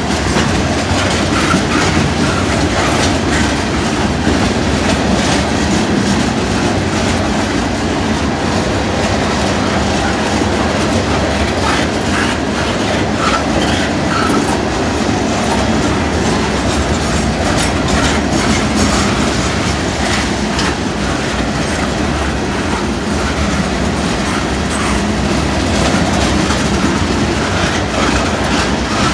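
Freight train cars rolling past at close range: a steady loud rumble of wheels on rail with scattered clicks over the rail joints.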